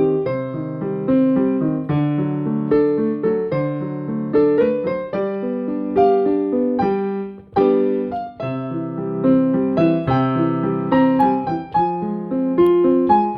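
Solo piano music: chords with a melody line above them, each note struck and left to fade.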